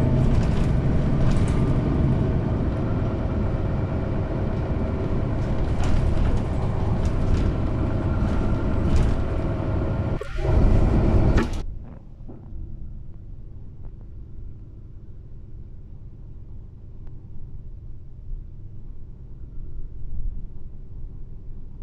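Ride noise inside a moving city bus: engine and tyre rumble with light rattles from the cabin. About ten seconds in, a truck passing alongside makes it louder, and soon after the sound drops suddenly to a quieter, duller rumble.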